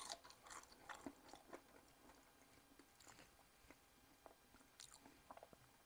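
Near silence with faint, irregular chewing: a person eating a crisp air-fried french fry.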